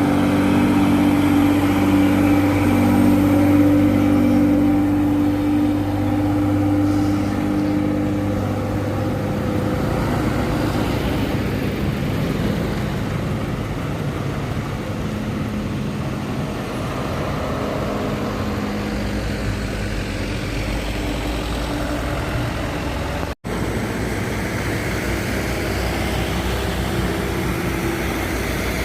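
Road traffic: a heavy vehicle's engine runs loud and close for the first several seconds, then fades into the general rumble of passing vehicles. A deeper rumble builds in the second half, and the sound drops out for a split second about two-thirds of the way through.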